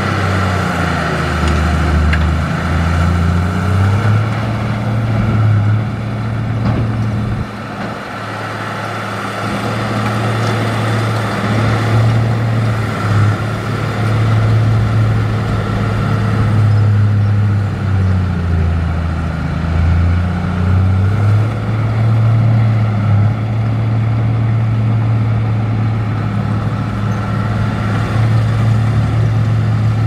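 Large diesel engine of a heavy earthmoving machine working steadily. Its note dips in pitch twice, about a second in and again around eighteen seconds, and recovers each time.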